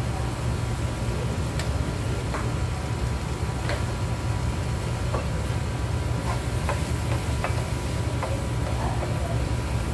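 Chicken and tomato sauce sizzling in a frying pan on a gas hob, with scattered clicks and scrapes as a wooden spoon starts stirring the spices into it in the second half. A steady low hum runs underneath.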